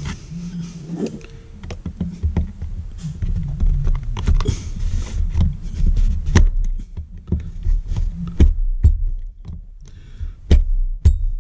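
Irregular clicks, taps and scrapes of a hand tool and a ground clip being worked onto the edge of a metal electrical box with a fresh length of 14 gauge ground wire, over low handling rumble.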